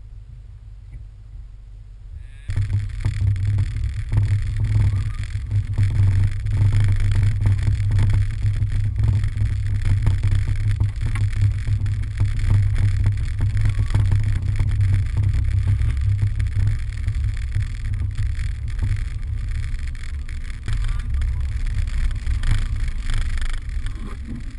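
Vehicle towing a sled over a snowy road: a loud, steady low rumble of the driving vehicle, which starts suddenly about two and a half seconds in, heard from a camera mounted on the vehicle.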